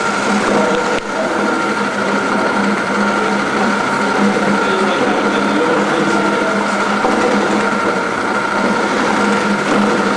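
A small electric motor running steadily with an even hum and whine, such as a mixer working a batch of gelato.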